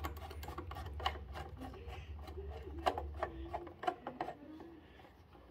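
Screwdriver turning a self-tapping screw out of an electric scooter's metal steering stem: a run of small irregular clicks and scrapes over a low hum, dying away after about four seconds.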